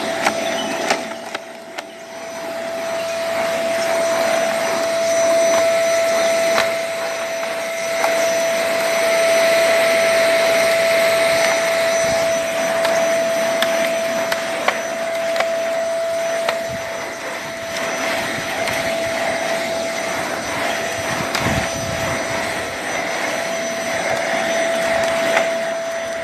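Vacuum cleaner running over artificial grass, a steady whine over a rushing hiss, with a few short knocks and clicks. It dips briefly about two seconds in, then runs on louder.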